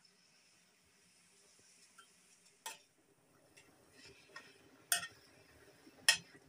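A metal ladle stirring mustard-green stalks in a steel kadai, striking the pan with three sharp clinks, over a faint steady hiss.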